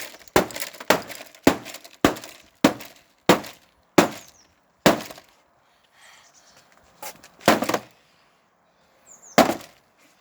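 A broken TV set being struck again and again, glass and casing cracking under the blows: about eight sharp hits in quick succession, then a pause and two more.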